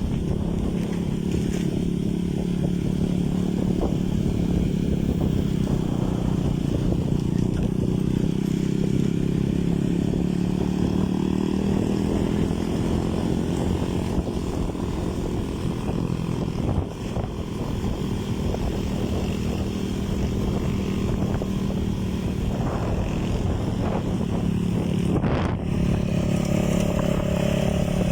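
Boat motor running steadily at a constant speed, with a brief dip in level about two-thirds of the way through.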